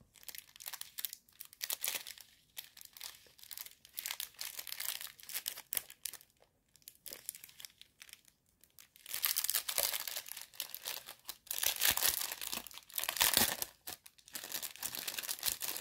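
Clear plastic packets of diamond painting drills crinkling as they are handled, sparse crackles at first and denser, steadier crinkling from about halfway through.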